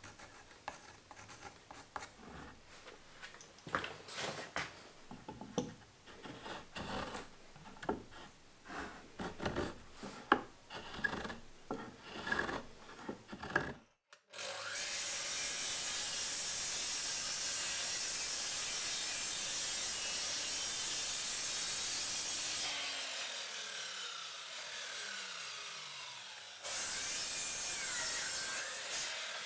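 Light scratching and knocks of timber being marked out and handled on a wooden bench, then a DeWalt sliding mitre saw running and cutting through timber with a steady loud whine. Halfway through, the blade spins down with falling pitch, and near the end the saw starts up again.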